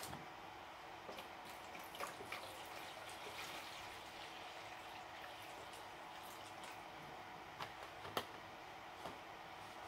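Quiet room tone with a steady low hum, broken by a few scattered small clicks and taps, the sharpest about eight seconds in.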